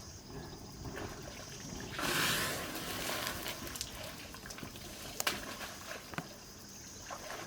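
Elephant splashing water: a louder rush of splashing about two seconds in, then lighter trickling with a few small sharp knocks.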